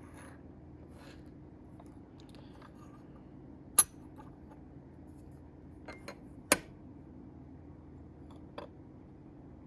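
Parts of a disassembled Ontario RAT 1 folding knife being laid out on a hard surface: two sharp metallic clinks, about four and six and a half seconds in, and a few fainter ticks, over a steady low hum.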